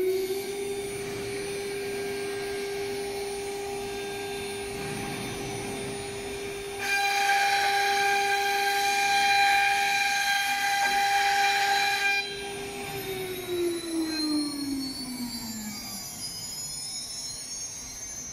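ATC CNC router's electric spindle running with a high steady whine that settles at full speed just after the start. For about five seconds in the middle it cuts into a wooden board with a louder, harsher noise. It then winds down with a falling whine.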